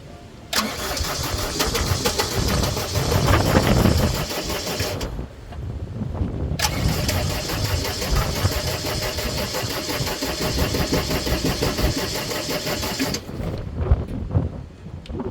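Gehl 4640 skid steer's Deutz diesel turning over on the starter in two long cranking attempts with a pause between. Each ends abruptly without the engine catching, the no-start condition being diagnosed.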